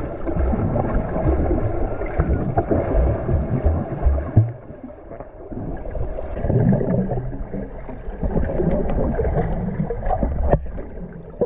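Water heard through a submerged camera: a muffled, dull churning and gurgling of moving water with scattered small clicks and knocks, quieter for a moment a little before the middle.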